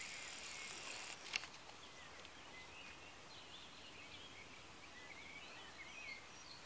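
Small songbirds singing faintly in quick chirping, warbling phrases. A rustling hiss at the start stops a little over a second in, followed by a single sharp click, the loudest sound.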